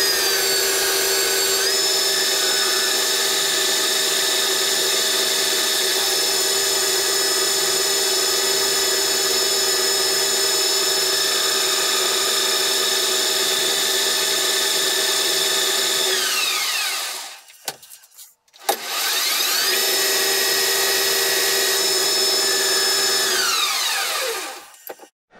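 Metal lathe running with a steady whine of several tones. About two-thirds of the way through it shuts off and spins down to quiet. It then starts up again, runs a few seconds, and spins down once more near the end.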